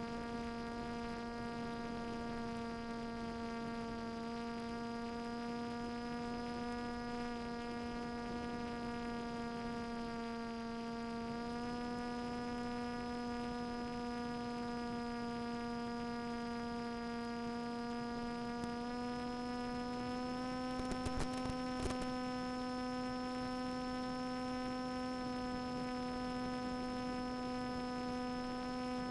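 Brushless outrunner motor and propeller of a Swift II flying wing, heard through the onboard FPV audio link as a steady electric hum with many overtones. Its pitch steps up slightly twice with throttle changes. A few brief crackles come about three quarters of the way in.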